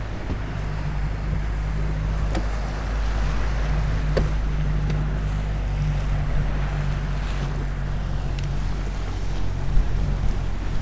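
Motorboat engine running with a steady low hum, under wind buffeting the microphone and the wash of water.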